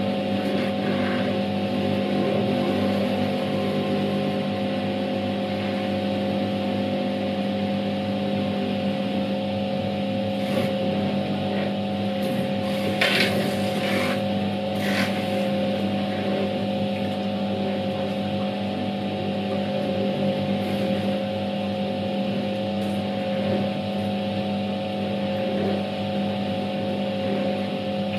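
Światowit M4 impeller washing machine running a wash: its EDA SED-110-4 motor hums steadily while the impeller swirls the water and laundry in the tub, with a few short sharper sounds near the middle.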